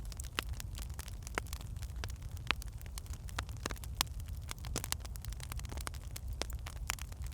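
Wood fire in a fireplace crackling: irregular sharp pops and snaps of burning logs over a steady low rumble of the flames.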